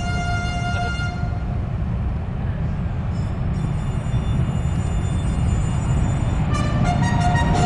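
B-1B Lancer's four General Electric F101 afterburning turbofan jet engines at takeoff power: a deep, steady rumble with high whining tones that come and go over it, growing slightly louder near the end.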